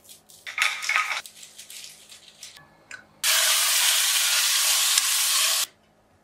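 Pork loin searing in a hot pan: a loud, steady sizzle for about two and a half seconds that starts and cuts off abruptly. Before it, a couple of seconds of scattered rustling and crinkling while the meat is seasoned on foil.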